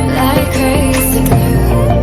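Background music: an instrumental passage with held tones over a steady bass.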